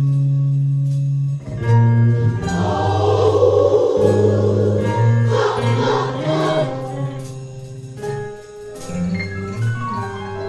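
Gospel music: a choir singing over held instrumental notes, the voices strongest in the middle of the stretch.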